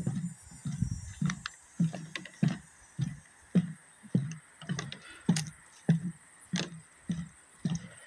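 Footsteps on a wooden plank boardwalk at a steady walking pace, about two dull thuds a second, each with a light knock of the boards.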